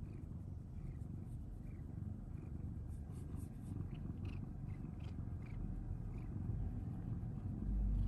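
Domestic cat purring steadily, a continuous low rumble, with a few faint light ticks over it.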